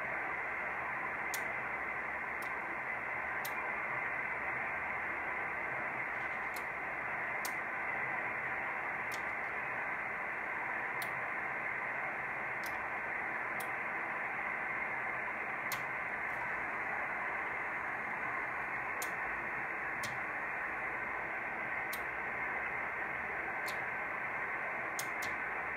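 Steady hiss from a Yaesu FT-847 receiving upper sideband on 432 MHz, with the four-Yagi EME array peaked on the sun: the hiss is solar noise raising the receiver's noise floor. The hiss is cut off above the sideband filter's passband, with a few faint ticks scattered through it.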